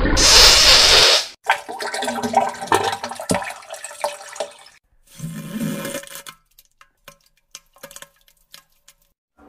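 Rushing water in a toilet: a loud gush for about the first second, then irregular gurgling and splashing that dies away into a few scattered faint clicks.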